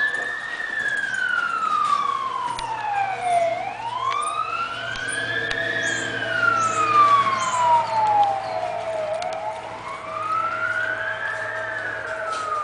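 A siren wailing in slow cycles, each rising in about a second and falling over about four seconds, repeating about every five and a half seconds.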